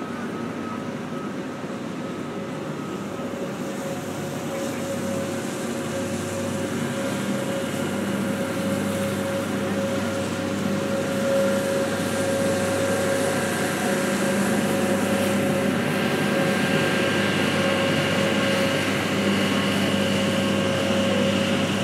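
Engine of a canopied water taxi on a canal, a steady hum with a few held tones, getting louder as the boat comes close and passes.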